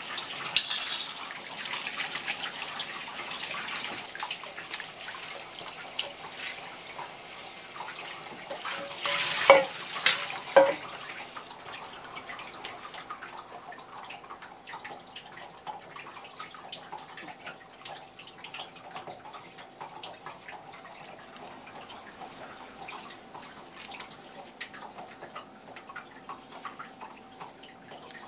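Tap water running from a flexible hose faucet onto a gutted fish as its belly cavity is rinsed. Two sharp knocks come shortly before the water stops about 11 seconds in. Faint drips and small ticks follow.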